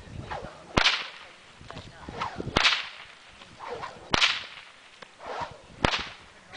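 A whip cracked four times, about every one and a half to two seconds: each sharp crack comes right after the swish of the lash through the air.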